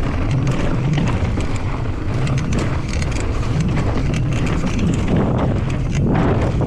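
Wind buffeting the microphone of a camera on a mountain bike descending fast, with the bike's frame and chain rattling and clattering over rough dirt trail.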